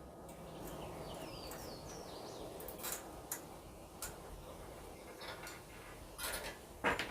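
A scattered series of sharp clicks and knocks from parts being handled during the assembly of a miter saw and its stand, the loudest near the end. Birds chirp in the background.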